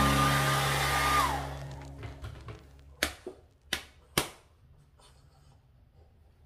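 Handheld hair dryer blowing with a steady high whine, switched off a little over a second in, the whine dropping as it spins down. Then a few sharp pats of a hand on the dog.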